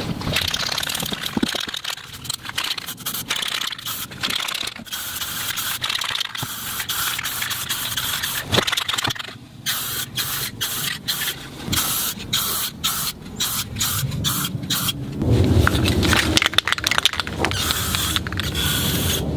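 Aerosol spray-paint can (rattle can) hissing in a long series of short bursts with brief gaps between them as the nozzle is pressed and released, laying a coat of paint onto a model.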